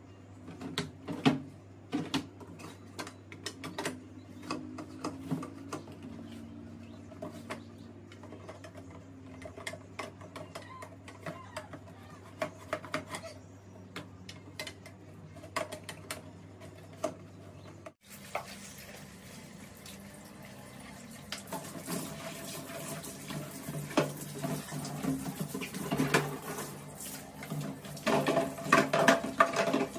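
Hard plastic parts of a dish-drying cabinet clicking, knocking and rattling as its drawers are slid and its dish rack is handled and fitted. A steady low hum runs under the first half and stops abruptly a little past the middle; the rattling is busiest near the end.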